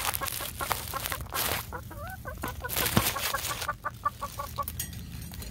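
A chicken clucking: runs of short, evenly spaced clucks near the start and again near the end, with a wavering call about two seconds in.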